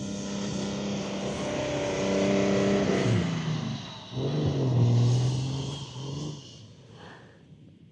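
Off-road 4x4's engine revving hard under load while driving through deep snow. Its pitch drops about three seconds in, picks up again a second later, then dies away near the end.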